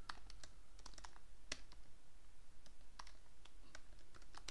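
Typing on a computer keyboard: irregular key clicks in quick clusters with short pauses.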